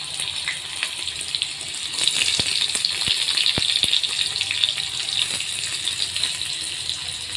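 Chopped onion and crushed garlic frying in hot oil in a kadhai: a steady sizzle with a few sharp pops, a little louder from about two seconds in.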